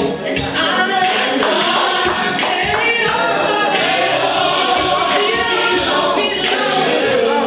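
Gospel choir singing with instrumental backing and a steady beat of percussion hits.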